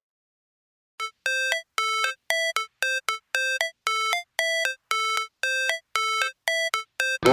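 Electronic timer alarm beeping, a short two-note chime repeating about twice a second, starting about a second in. Loud music cuts in at the very end.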